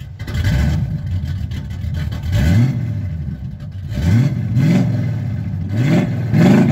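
A car engine running and being revved several times, each rev a quick rise in pitch that then drops back.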